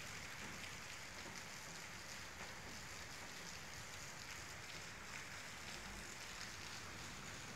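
Steady rain falling, a dense even patter of drops with a low rumble underneath.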